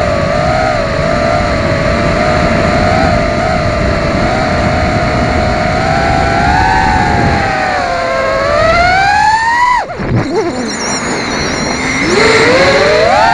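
FPV quadcopter's brushless motors whining, the pitch sliding up and down with the throttle. The whine climbs to its highest just before ten seconds in, drops sharply as the throttle is chopped, then rises again near the end as it is punched back up.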